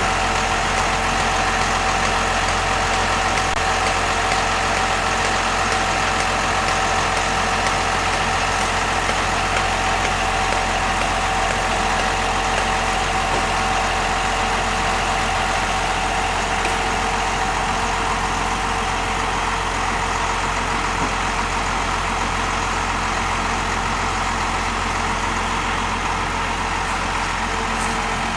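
An engine running steadily at constant speed: a loud, unchanging drone with a couple of steady tones in it.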